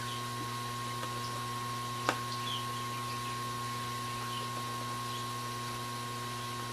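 Steady electrical hum of workbench equipment with a faint high tone, and one sharp small click about two seconds in, as a small tool or part taps against the laptop.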